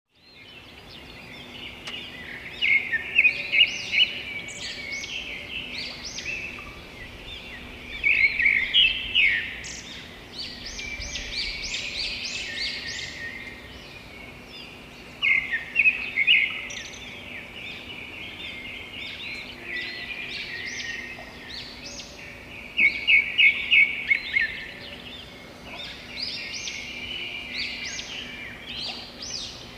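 Several songbirds chirping at once, a dense run of short overlapping calls. Four times, a louder burst of quick repeated chirps stands out.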